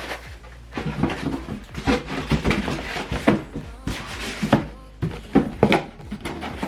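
Packaging being handled during an unboxing: irregular rustles and light knocks, several a second.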